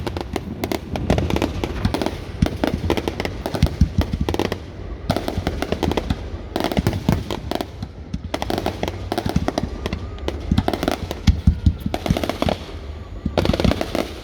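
Fireworks display: shells bursting in a rapid, irregular run of bangs and crackles, with no let-up.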